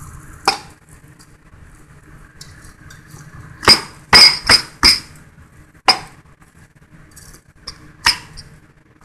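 Knife blade striking a plastic cutting board as a cooked Cornish game hen is chopped into pieces: a series of sharp knocks, about eight in all, four of them in quick succession around the middle.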